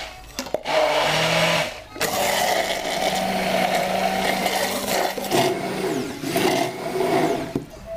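Electric immersion stick blender running in a tall beaker, pureeing peach into a smooth mixture. It starts just after the beginning, stops briefly near two seconds in, then runs steadily until just before the end.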